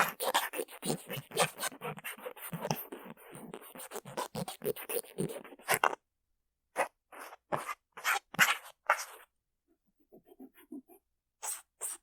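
Cotton swab rubbing and scratching on the microphone side of a Mu6 Lifelike2 binaural earphone's shell, heard right at the mic. It is a dense run of quick scratchy strokes, then after a short break about six seconds in, slower separate strokes and a few faint ones. The background hiss has been removed by noise reduction, leaving dead silence between strokes.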